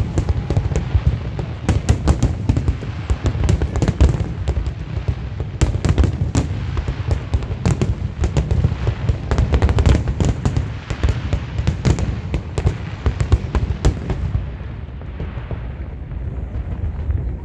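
Aerial fireworks display: a dense barrage of overlapping booms and crackling bursts over a continuous low rumble, thinning to fewer, duller booms about fourteen seconds in.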